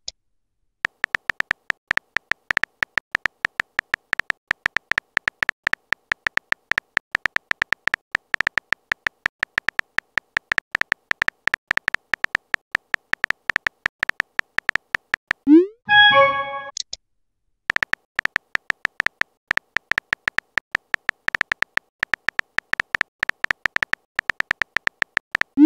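Phone keyboard typing sound effect: rapid, evenly repeated clicks. About 16 seconds in the clicks pause for a short rising message-sent notification tone, then resume.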